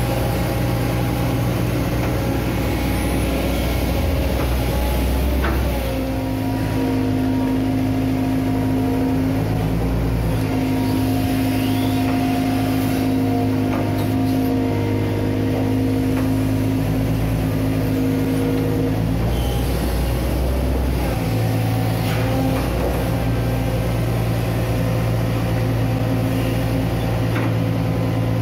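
Hitachi Zaxis 130 amphibious excavator's diesel engine running steadily as the machine digs, its note shifting in pitch several times as the load changes.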